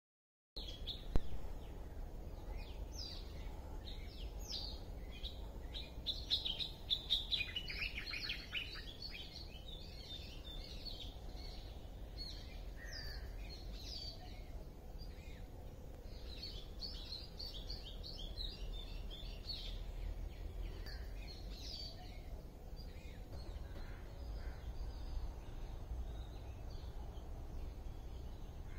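Outdoor ambience of many small birds chirping and calling, busiest in two spells about a quarter and half way through, over a low steady rumble. The sound cuts in from silence at the start, with a sharp click about a second in.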